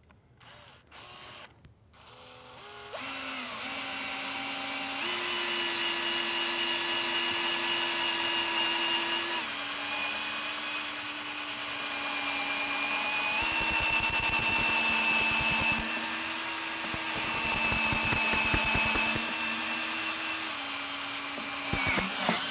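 Cordless drill boring a hole into a wooden frame. After a couple of short starts, the motor runs steadily and shifts pitch a few times as the pressure changes. About halfway through, the bit chatters and grinds in the wood twice, for a couple of seconds each time.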